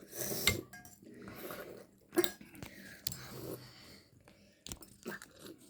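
Spoons clinking now and then against soup bowls as several people eat soup, with scattered small clicks over a low background murmur.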